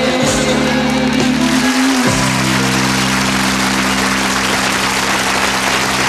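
Band holding the final chord of a comedy song, the chord changing once about two seconds in, while a studio audience applauds.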